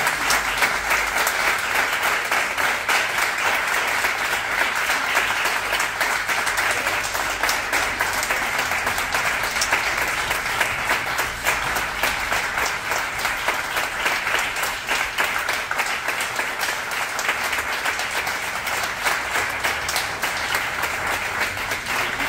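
Audience applauding: many hands clapping in a dense, steady stream that eases off slightly near the end.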